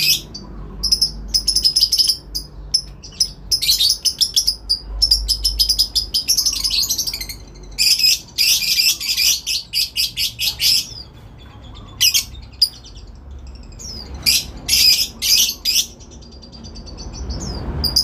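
Lovebird's ngekek: long runs of rapid, high-pitched chattering trills. The longest runs fall about 4 to 7 seconds in and 8 to 11 seconds in, with shorter bursts and brief pauses between.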